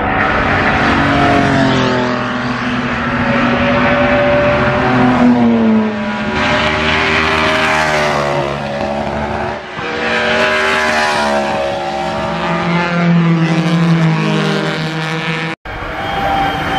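BRM V16 racing car's supercharged 1.5-litre V16 running at high revs on track, ear-splitting, its many-toned pitch climbing and dropping again several times through gear changes as it passes.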